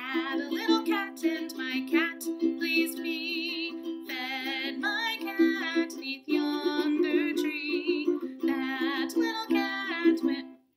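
Woman singing a children's song while strumming steady chords on a ukulele. The sound cuts off suddenly near the end.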